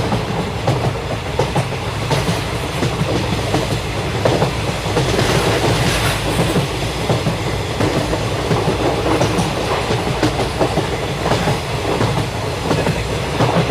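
Passenger train coaches running along the track: a steady rumble of wheels on rails with irregular clickety-clack over the rail joints.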